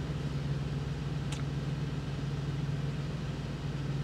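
Steady low hum of an idling diesel truck engine, heard inside the sleeper cab, with one faint click about a second in.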